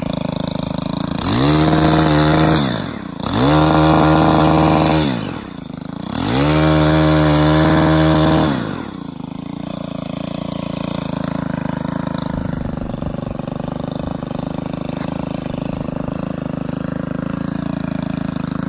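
Gas chainsaw revved to full throttle three times, each burst held for about two seconds, then dropping back to a steady idle.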